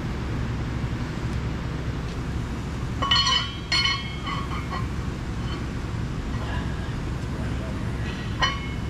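Steel bearing race clinking and ringing against the hub bore of a Caterpillar D10R final drive as it is set in by hand, chilled from the freezer so that it shrinks to fit: two sharp metallic clinks about three seconds in and another near the end. Under it, a steady low rumble.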